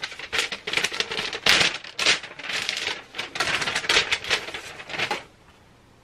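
Plastic packaging around a solid-state drive crinkling and crackling as it is opened by hand: a dense, irregular run of crackles that stops suddenly about five seconds in.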